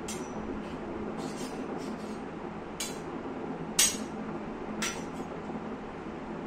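Three short, sharp clinks about a second apart near the middle, the second the loudest, over a steady low background hum.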